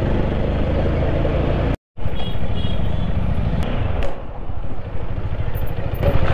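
Motorcycle riding noise: engine and wind rush on the rider's microphone. It breaks off in a brief silent cut just before two seconds in, resumes, and is somewhat quieter from about four seconds on.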